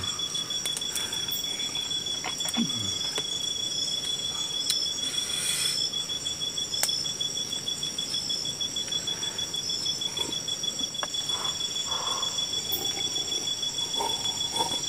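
Night insects, crickets among them, calling steadily: a fast, high pulsing trill and continuous high-pitched buzzing over a soft hiss, with a few faint clicks.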